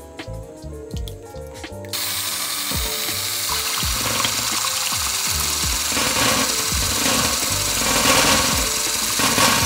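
Electric hand mixer switched on about two seconds in and then running steadily, whipping the cream for a tiramisu, over background music.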